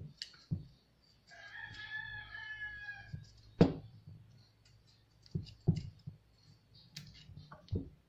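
A small knife clicks and taps as it cuts into a chayote, with one sharp knock midway. About a second in, a rooster crows once, for about two seconds.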